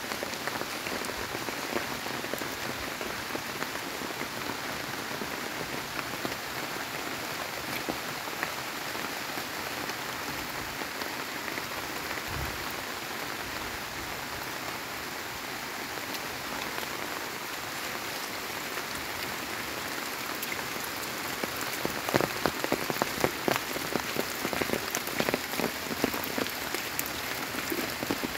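Steady rain falling on broad leaves and wet ground, an even hiss of drops. From about two-thirds of the way in, louder individual drops strike close by, standing out as sharp taps above the hiss.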